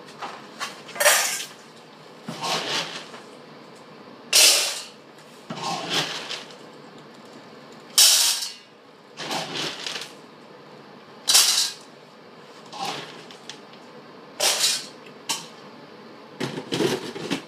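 Large mastiff close to the microphone sniffing and huffing in short, loud, breathy bursts, one every second or two.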